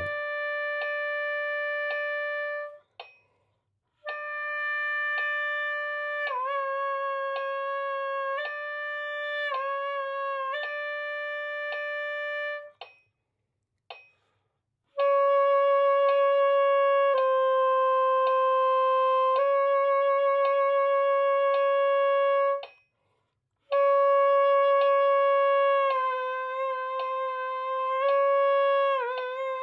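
Alto saxophone holding long tones and bending them down about a half step and back up again, the pitch moved by voicing (tongue position) rather than the embouchure, as a pitch-bending exercise. Four held phrases with short breaths between them, several dips in pitch within each.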